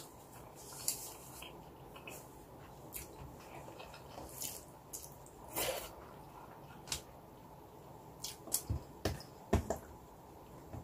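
Close-up eating sounds: chewing with small mouth clicks, and fingers gathering rice off an aluminium foil sheet, heard as scattered soft clicks and taps that come thicker near the end.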